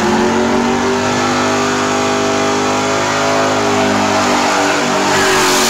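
Ford Mustang drag car's engine held at high revs at the starting line, a steady loud note that sags slightly in pitch, with the rear tires spinning in a burnout.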